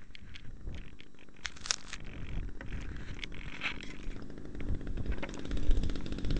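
Wind rumble and scattered clicks and scratches on the microphone of a small camera riding on a discus-launch glider while the glider is caught and handled. The rumble grows louder near the end.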